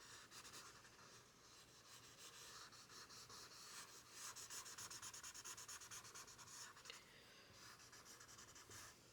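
Faint rubbing of a paper blending stump working graphite into drawing paper in small circles, a soft scratchy swishing that pulses with each stroke and grows a little stronger midway through.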